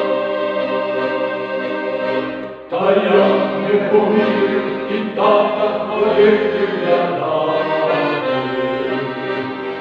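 A folk choir of men's and women's voices singing together with accordion accompaniment. One phrase ends about two and a half seconds in, and after a brief dip the next phrase starts.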